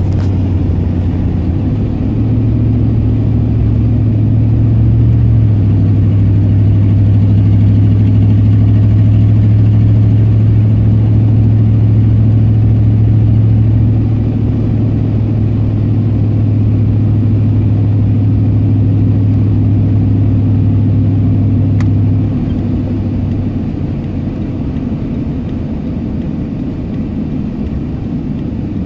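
Pickup truck's engine and road noise heard from inside the cab while driving: a steady low drone that eases off about halfway through and again near the end as the truck slows.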